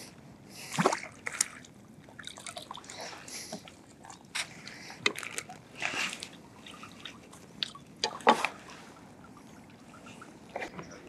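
Hooked herabuna (Japanese crucian carp) splashing at the surface beside a landing net: irregular splashes, sloshes and drips, the loudest about a second in and again about eight seconds in.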